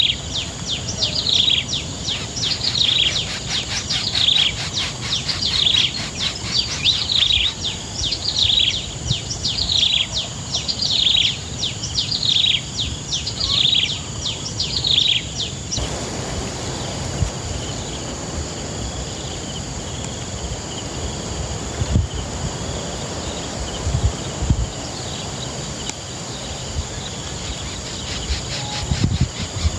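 A bird's repeated falling chirps, about one a second, stop abruptly about halfway through. A steady insect-like hiss follows, with a few soft low thumps.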